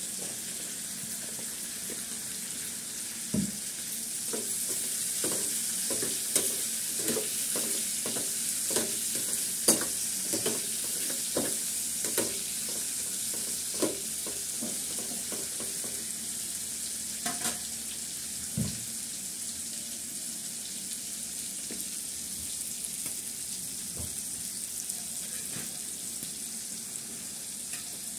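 Pointed gourd slices frying in oil in a pan, a steady sizzle. A spatula knocks and scrapes against the pan about twice a second while the vegetables are stirred, from about four to fourteen seconds in, with a few single knocks later.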